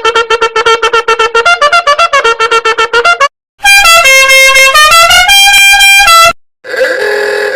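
Meme sound-effect clips played back to back. First comes a rapid run of short pitched notes for about three seconds. After a brief gap there is a loud melody of held notes stepping up and down in pitch, then a shorter tone near the end.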